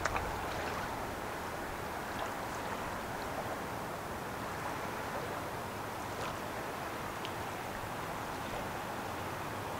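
Steady rushing outdoor noise by a river, a mix of flowing water and wind, with a few faint ticks.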